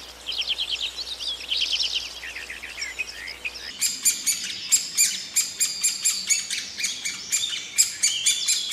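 Bird calls. For the first few seconds there are fast trilled high chirps. About four seconds in these change to a perched bird's sharp, rapid, clicking calls, several a second.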